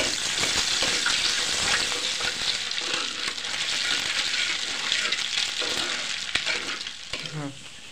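Eggs sizzling and bubbling in a hot steel pan as they are scrambled, with a spatula scraping and ticking against the metal. The sizzle eases off near the end.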